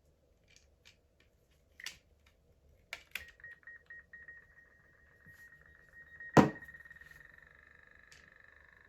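Stormtrooper and Darth Vader toy walkie-talkies being switched on: a few switch clicks, then a steady high electronic tone with a fast buzzing pulse, a loud pop about six and a half seconds in, and the tone going on afterwards.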